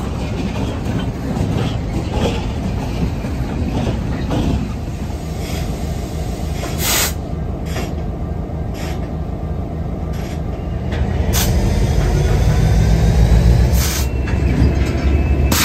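Canadian Pacific diesel locomotive running beside freight cars on the rails: a steady low engine rumble that swells late on, with a few sharp metallic clicks and a faint thin squeal from wheels on rail.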